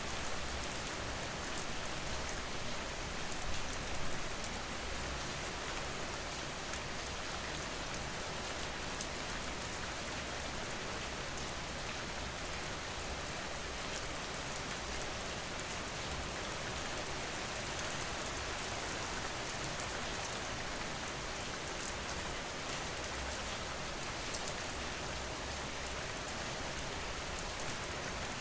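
Steady rain falling on a surface, an even hiss with fine drop patter throughout.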